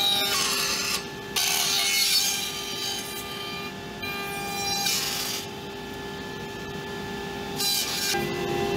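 CNC router spindle with a V-bit cutting walnut inlay strips on a wood blank turning in a rotary 4th axis. A steady spindle whine runs throughout, broken by four spells of louder, aggressive cutting noise as the bit bites into the wood.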